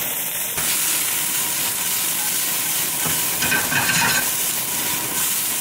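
Mushrooms, olive oil and freshly added garlic frying on very high heat in a pan, a steady sizzle that grows louder about half a second in, with stirring and scraping in the pan. The kitchen exhaust fan runs underneath.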